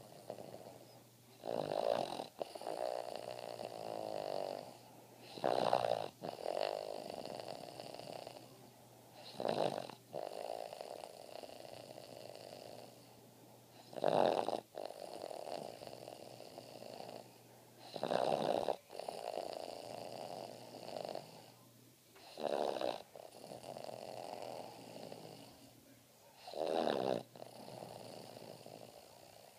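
Boston Terrier snoring in its sleep, a flat-faced breed's noisy breathing. There are about seven breaths, one every four seconds or so, each a short loud snore followed by a longer, softer rattle.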